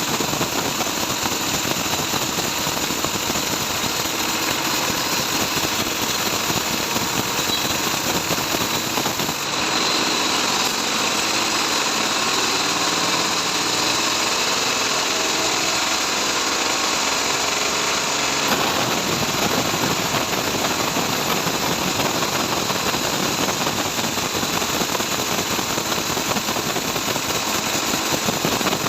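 Band saw running steadily, sawing trembesi (rain tree) wood. About ten seconds in, the noise abruptly loses its low end and takes on a faint pitched hum, then switches back about nine seconds later.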